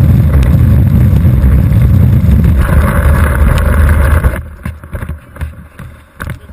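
Longboard wheels rolling over coarse asphalt, picked up close by a camera mounted on the board: a loud, steady rumble. It cuts off about four seconds in and gives way to quieter, irregular knocks.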